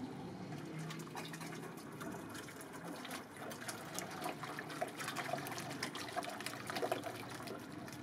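A hand stirring and sloshing gypsum powder into water in a plastic bucket, mixing plaster: wet sloshing and dribbling, with many small splashes from about three seconds in.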